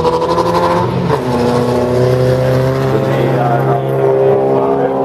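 Folkrace car engine running hard at high revs on a gravel track. The pitch dips about a second in and then climbs slowly.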